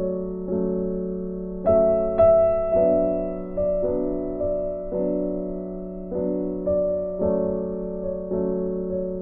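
Background music: a slow, gentle keyboard piece, with chords struck about every half second over a held low note.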